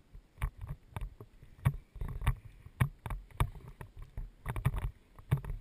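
Close handling noise: irregular knocks, thumps and rustles of gear being moved right beside a body-mounted camera, a few a second.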